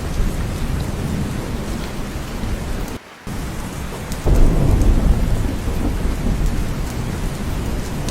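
Steady rain with a low rumble of thunder. The sound cuts out briefly about three seconds in, and a little after four seconds the low rumble swells louder.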